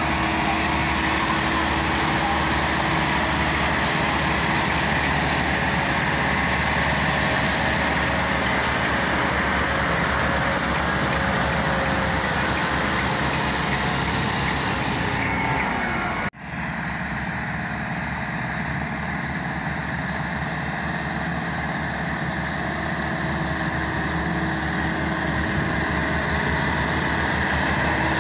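Massey Ferguson tractor diesel engines running steadily under load, pulling a heavily loaded sugarcane trolley. The sound drops out for an instant a little past halfway, then carries on.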